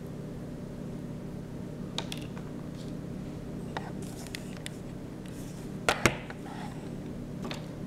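A paintbrush working on paper: scattered light scratches, brief strokes and taps, with two sharp clicks about six seconds in, over a steady low hum.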